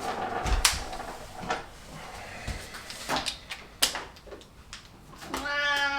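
A few sharp clicks and knocks of metal tools being handled, then near the end a domestic cat meowing once, the loudest sound here.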